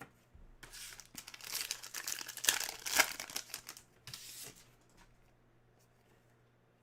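Plastic trading-card pack wrapper crinkling and rustling as it is handled, for about four seconds.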